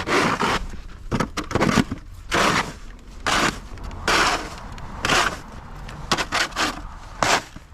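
Footsteps crunching through deep, fresh snow, a short crunch about once a second at a walking pace.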